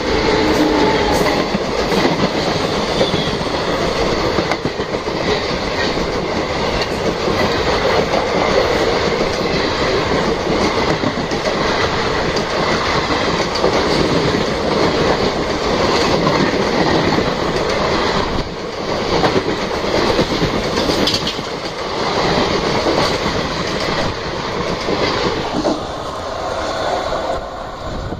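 Express train hauled by a WAP-7 electric locomotive passing at speed on the adjacent track: a steady rush of coaches with the clickety-clack of wheels over rail joints. It eases off near the end as the last coach goes by.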